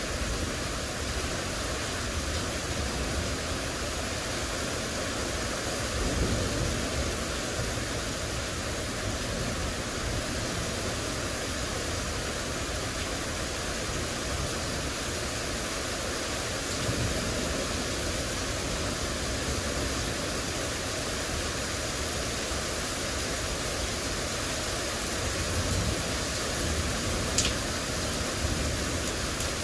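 Heavy rain pouring down in a dense, steady hiss, with one sharp tick near the end.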